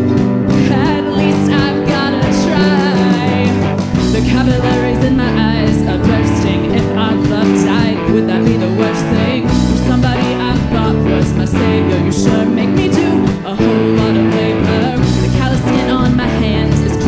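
Live band music: electric guitar, drums and keyboard playing steadily, with a woman's lead vocal over them.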